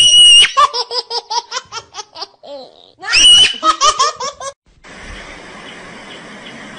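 High-pitched human laughter, twice: each bout a shrill squeal breaking into quick giggles. It stops about four and a half seconds in, and a steady, quieter hiss follows.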